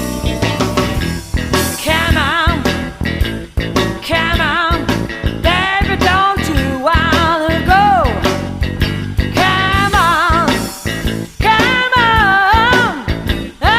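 Live blues band playing, with a lead line of short bent notes with vibrato over the rhythm section's steady beat.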